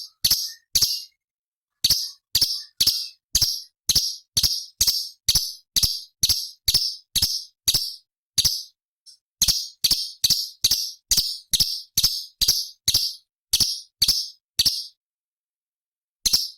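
Leafbird (cucak cungkok) calling a rapid series of sharp, harsh chip notes, about two and a half a second, in runs broken by short pauses.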